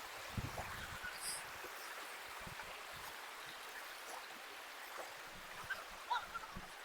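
Faint rushing of a forest hill stream, with a few soft knocks and a couple of short chirps near the end.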